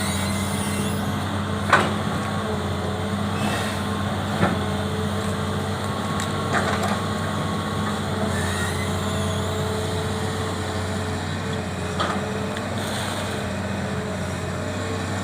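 Hitachi Zaxis 200 excavator's diesel engine running steadily under working load, with a few sharp knocks as the bucket moves stumps, roots and wood debris.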